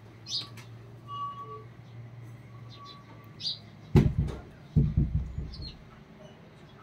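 Birds giving short chirps and thin whistles in the background, with two loud dull thumps close together about four and five seconds in.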